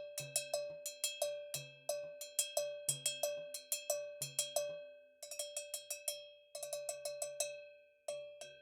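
César Alencastre cha-cha bell (cowbell) struck in a steady rhythmic pattern, each sharp metallic strike ringing briefly on a clear pitch. About five seconds in, and again about six and a half seconds in, it breaks into quicker, lighter runs of strokes.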